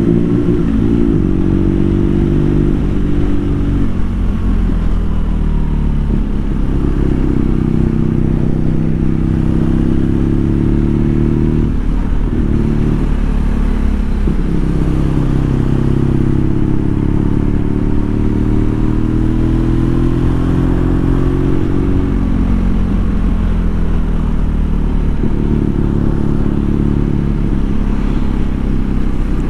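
BMW R nineT's 1170 cc boxer-twin engine running under way, heard from the bike. Its note climbs with the revs and drops back at each gear change or throttle lift, several times over.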